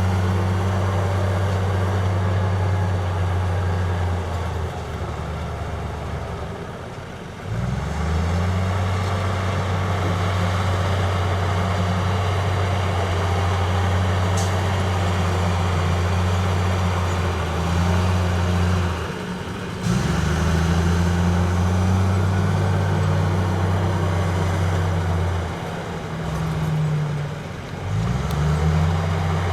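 Heavy diesel engine of earthmoving machinery running hard under load. It drops in speed three times and revs back up each time.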